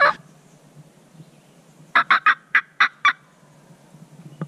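Turkey mouth call worked hard: a quick run of six sharp, loud cutting notes about two seconds in, the hunter's call to a gobbler.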